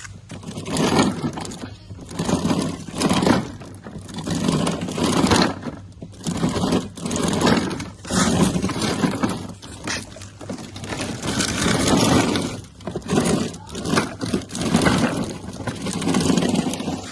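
Repeated rough scraping and crunching strokes, roughly one every second, with no steady motor tone.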